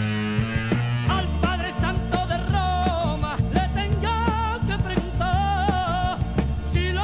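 A band recording with a drum kit keeping a steady beat under a bass line; a singing line with vibrato comes in about a second in.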